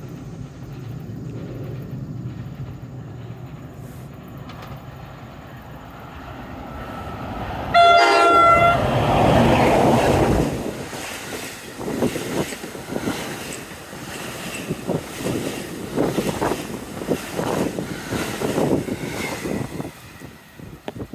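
NJ Transit ALP-46A electric locomotive with multilevel coaches: a low rumble as it approaches, then a short horn blast about eight seconds in, the loudest moment. The rush of the train passing follows, then the repeated clicking of the cars' wheels over rail joints as the coaches go by.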